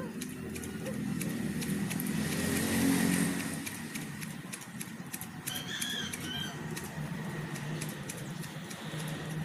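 Scissors snipping carabao grass, a quick run of clicks, while a passing motor vehicle swells to its loudest about three seconds in and then fades. A few short bird chirps come just past the middle.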